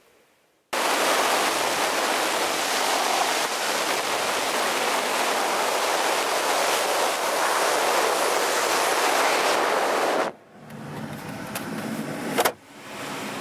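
Steady loud rush of air streaming past a glider in flight, cutting in suddenly and stopping abruptly about ten seconds later. A quieter stretch of cockpit noise follows with two sharp clicks.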